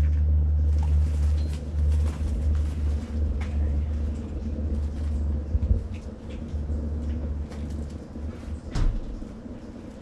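Low rumble of jet aircraft passing overhead, fading away over several seconds. Short handling clicks and a cloth bag rustling sit over it.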